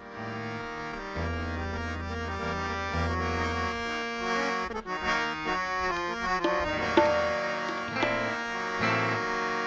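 Harmonium playing sustained chords and a melody line, with a few hand-drum strokes about halfway through and near the end.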